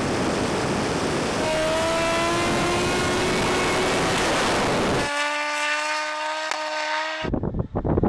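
Supercharged Suzuki Hayabusa's four-cylinder engine at full throttle in a drag run, heard onboard, its pitch rising steadily as it pulls. About five seconds in it gives way to a steadier, even-pitched drone, and near the end to a quieter, gustier sound.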